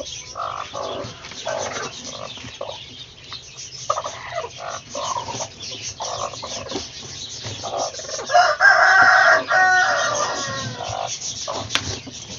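Chickens clucking in short calls, with one long, loud call about eight seconds in.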